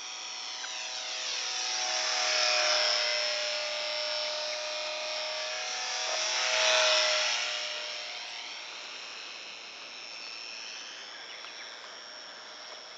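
Small electric park-flyer RC airplane's motor and propeller whining as it flies past twice, growing loud about two and a half seconds in and again about seven seconds in, then fading as it moves away.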